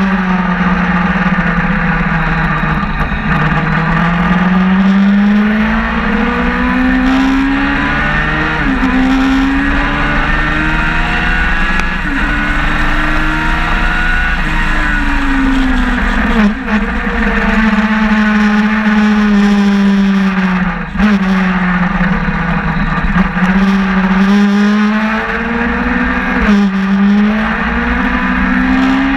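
Sportbike engine at full track pace, heard from on board. It revs up through the gears, the pitch climbing steadily and then dropping sharply at each upshift, several times, with slower falls as the rider rolls off and brakes for corners.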